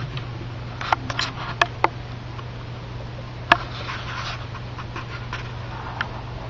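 A few sharp light clicks and short soft rustles, over a steady low hum.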